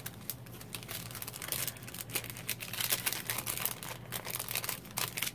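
Clear plastic packaging and thick die-cut paper ephemera pieces crinkling and rustling as they are handled, in quick, irregular crackles.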